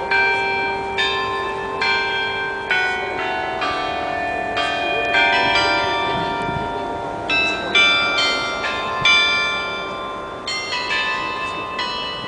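Riga Town Hall's tuned bells playing a slow tune: single struck notes, one every half second to a second, each ringing on and overlapping the next.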